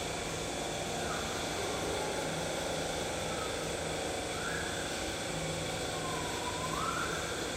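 A steady mechanical hum, with three or four short rising-and-falling bird whistles over it.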